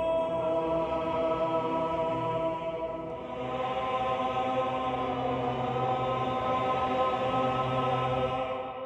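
Horror film score music: a choir holding sustained chant-like chords. The chord shifts about three seconds in, and the music fades out near the end.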